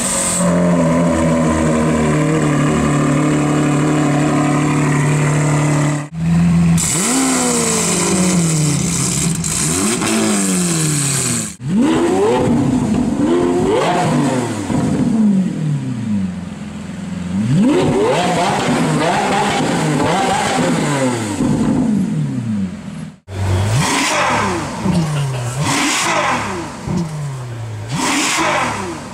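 Supercar engines being revved in a series of short clips: first an engine held at high revs for about six seconds, then repeated rev blips whose pitch shoots up and falls away, and near the end a run of quick blips about a second apart.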